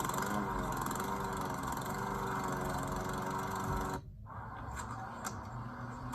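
Small petrol engine running like a lawn mower, a steady drone that drops out briefly about four seconds in and picks up again.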